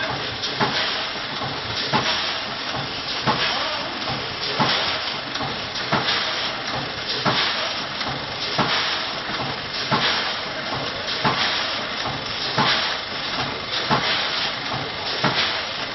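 Automatic vertical granule packing machine running as it bags rice snacks: a steady hiss with a regular clack about every two-thirds of a second.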